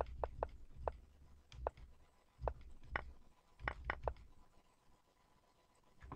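Quiet, irregular computer clicks, about ten in the first four seconds, some in quick pairs, then a short lull. They come as moves of a chess game are stepped through on an analysis board.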